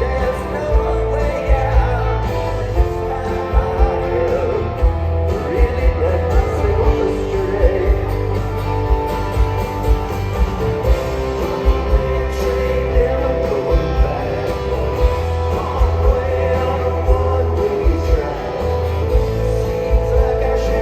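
Live rock band playing, amplified through a concert sound system: a voice singing over guitars, bass and drums, with a steady beat of about two drum hits a second.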